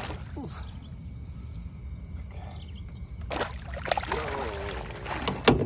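Hooked snakehead splashing at the water surface as it is brought to the landing net, the splashing starting about three seconds in, with a couple of sharp knocks near the end. A steady low rumble lies underneath.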